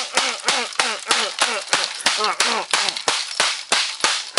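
A hammer repeatedly striking a laptop keyboard, sharp hard blows about three a second, knocking the keycaps off. A voice counts along with the blows until about two and a half seconds in.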